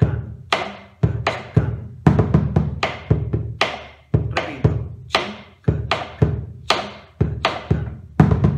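Bombo legüero played slowly with two wooden sticks: the basic northern zapateo rhythm (ritmo tipo gato, in 3/4) with the repique norteño. Deep strokes on the hide head mix with drier, sharper clicks, about two to three strokes a second.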